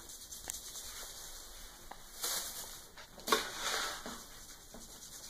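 Plastic slotted scoop raking through cat litter in a litter box: gritty scraping and rustling of litter in two bursts, about two seconds in and about three seconds in, the second opening with a sharp knock.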